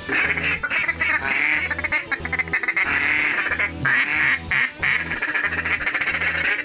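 A large flock of ducks quacking continuously, many calls overlapping as the birds come in low over the decoys.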